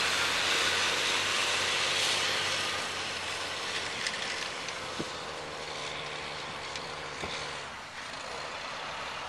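Loaded semi-truck's diesel engine pulling through soft mud, the sound fading as the truck drives away, with a few light knocks.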